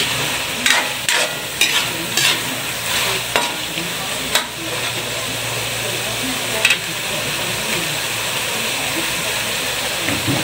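Scallops, kangkong and chili in coconut-milk sauce simmering and sizzling in a pan, the dish cooked through. A cooking utensil stirs and scrapes against the pan several times in the first half and once more later.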